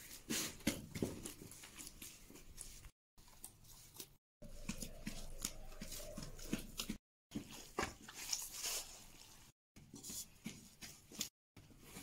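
Hands kneading sticky, wet bread dough mixed with chopped green onions in an aluminium bowl: irregular squelching, sticky pulling and soft slaps, in several short stretches that break off abruptly.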